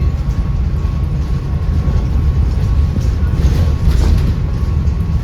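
Volvo B7RLE bus's seven-litre straight-six diesel running under way, a steady deep rumble with a thin constant whine above it, its cooling fans loud enough to make the bus sound rather unhealthy.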